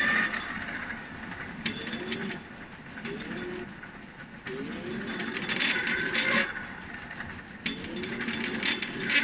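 MXUS XF15 electric-bike hub motor running unloaded, its whine rising and falling several times. Each speed-up brings a second or two of metallic grinding and rattling from inside the motor.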